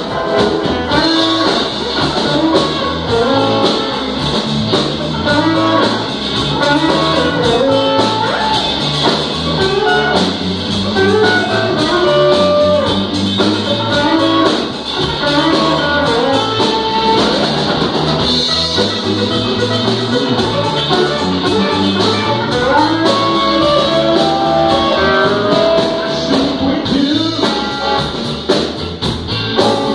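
A live band jamming on electric guitars and drum kit, heard in the room and loud throughout.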